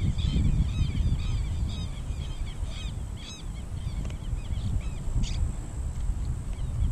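A bird calling over and over in short arched cries, several a second, thinning out after about four seconds, over a steady rumble of wind on the microphone.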